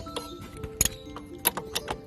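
Background music: sustained notes with sharp, clicking percussion hits.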